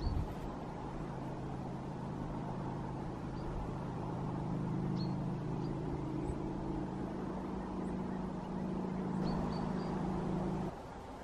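A steady, low engine drone from a distant motor, cutting off suddenly near the end, with a few faint, short, high bird chirps over it.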